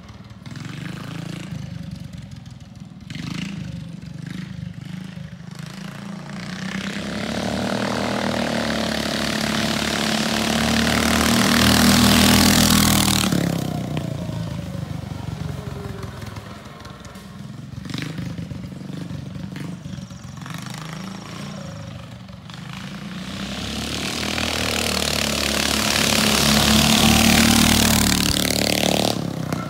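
Custom trike's 460cc Predator single-cylinder engine riding past twice: the engine sound swells as the trike approaches, is loudest as it passes about twelve seconds in and again near the end, and fades away in between.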